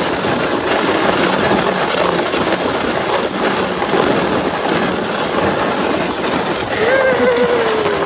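Sled sliding fast down a snowy slope: a loud, steady rushing noise of the run over the snow. About seven seconds in, a person's voice rises briefly over it.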